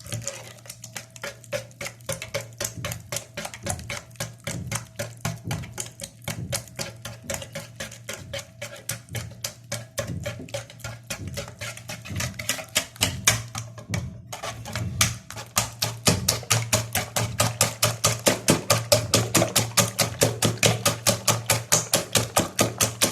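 A whisk beating cake batter of eggs, sugar and oil in a bowl by hand: a long run of quick, regular clicking strokes against the bowl that gets faster and louder in the second half.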